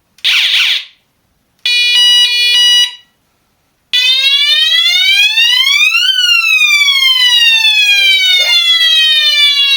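Children's electronic bicycle siren-horn cycling through its sound modes, very loud. First a short harsh burst, then a pulsing electronic tone about a second long, then a police-style wail that rises for about two seconds and falls slowly for about four.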